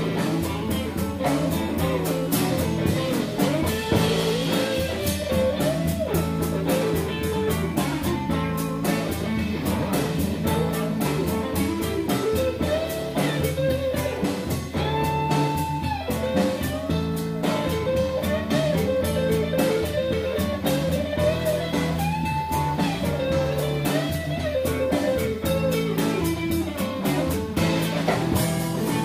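Live blues band playing an instrumental passage: an electric guitar plays lead lines with bent notes over drums, bass guitar and electric piano.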